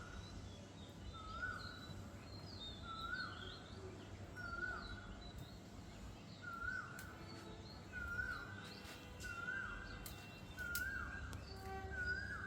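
A bird calling the same short note over and over, each note rising then dropping, about every second and a half at first and closer to once a second later on. Other birds chirp faintly and higher, over a low steady rumble.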